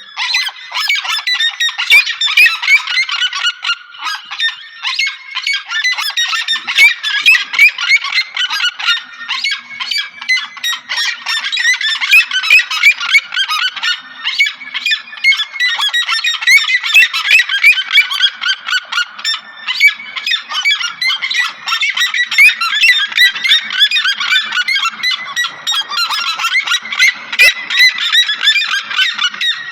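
Seriemas calling: a loud, continuous chorus of rapid, overlapping high calls.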